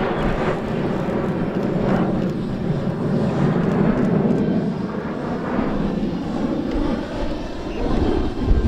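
Jet noise from a formation of four BAE Hawk Mk.51A jet trainers in flight: a steady rushing from their Rolls-Royce Adour turbofans that swells and eases a little as the formation moves across the sky.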